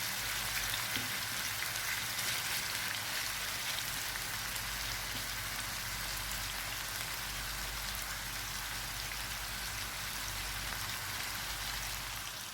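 Marinated chicken pieces shallow-frying in hot oil in a pan: a steady sizzle with fine crackles.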